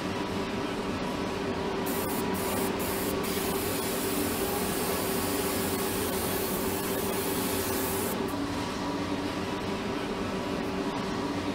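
A steady hiss of spraying or escaping air, starting about two seconds in and stopping sharply about six seconds later. It sits over the constant hum of production-line machinery, which carries a few steady tones.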